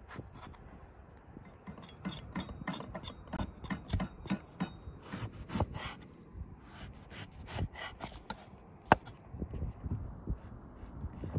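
Kitchen knife peeling an eggplant, then cutting it into slices on a wooden cutting board: a run of sharp, irregular taps of the blade on the board, about two or three a second.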